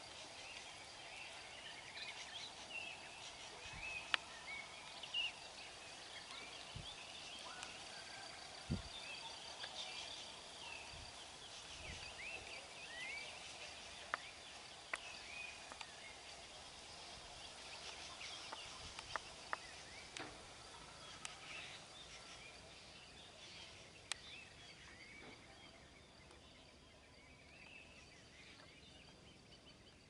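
Faint birdsong: many small birds chirping in short, overlapping calls over a thin steady high tone, with a sharp knock now and then. The loudest knocks come about four and nine seconds in.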